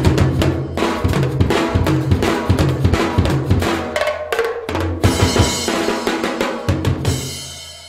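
Brazilian-style percussion groove played on a mixed drum set of bass drum, small metal-shelled drums and cymbals: quick, busy strokes over steady low bass notes. It fades out near the end.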